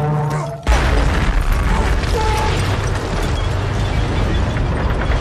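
A sudden loud explosion cuts in sharply after a brief drop in sound about half a second in. A dense, low rumble of battle noise follows and holds steady.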